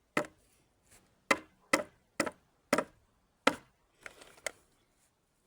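Hammer driving a nail into a wooden board of a garden-bed frame: six sharp blows about half a second apart, then a few lighter taps near the end.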